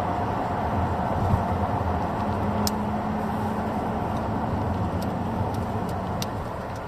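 A car engine running at a steady speed with no revving, with a few faint clicks along the way.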